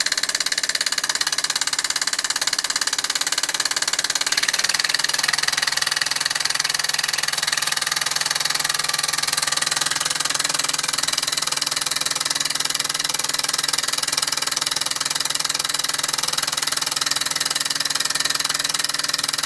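Mamod SE2 model steam engine running steadily under steam: a fast, even chuffing of exhaust steam with a constant hiss.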